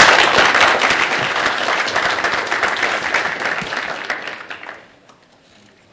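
Audience applauding, a dense patter of many hands clapping that is loudest at the start and dies away about five seconds in.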